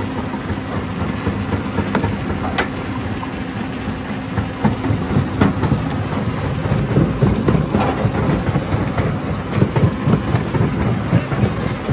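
Stone jaw crusher running with a steady mechanical hum, while rock cracks and knocks irregularly between the jaws as it is crushed. The crushing gets busier and louder from about halfway through.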